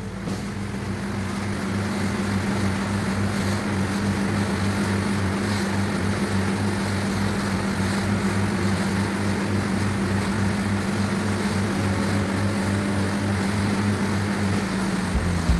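Pilot boat under way at speed: its engines drone steadily with a regular pulsing beat, over water rushing past the hull and wind noise. The engine sound builds over the first couple of seconds, then holds steady.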